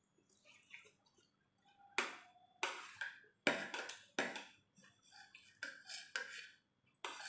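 A metal fork scraping and clinking against a ceramic plate of rice and chicken: several short, sharp scrapes spaced irregularly, some with a brief ring from the plate.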